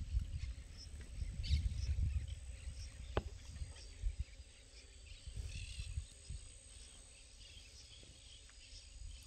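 Wetland ambience of scattered small-bird chirps over a fluctuating low rumble of wind on the microphone, which is loudest in the first couple of seconds and then dies down; a single sharp click about three seconds in.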